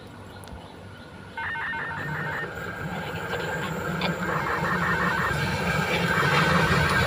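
Diesel locomotive of a passenger train approaching round a curve, its engine rumble starting about a second in and growing steadily louder. Over it, a rapid pulsing high tone sounds in three short bursts.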